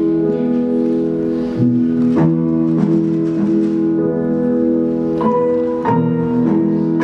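Instrumental keyboard music: held chords with a new note or chord struck about every 0.6 s in a slow, even pulse.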